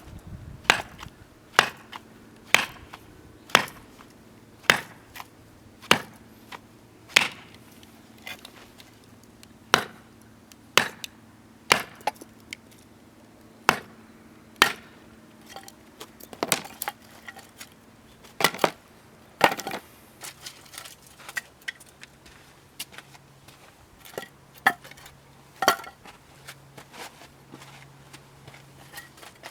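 Firewood being split by hand: sharp wooden knocks, about one a second, for the first two-thirds, then quieter and irregular knocks.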